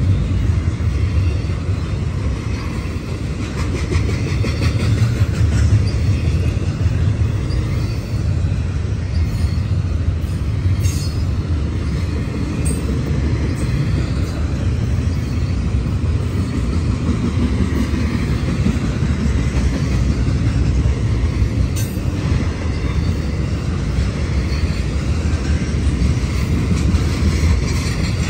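Double-stack intermodal freight train's well cars rolling past: a steady deep rumble of steel wheels on rail, with a few brief sharp ticks from the wheels and cars.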